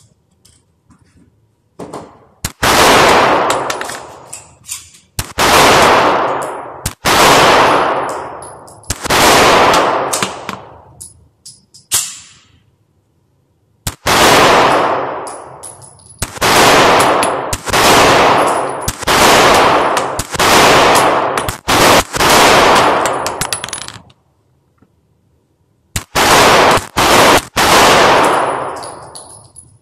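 Pistol shots fired in a small indoor shooting range, about a dozen at a pace of roughly one every one to two seconds, with short pauses about halfway through and again near the end. Each shot rings out in the room for a second or more before it fades.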